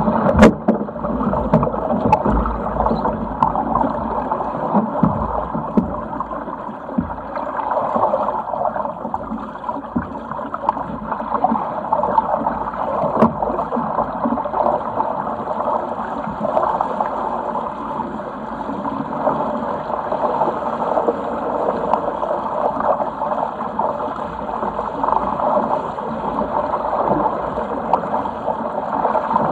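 Water rushing and gurgling along the hull of a Sigma 8 metre racing cruiser under sail, a steady wash, with a sharp knock about half a second in.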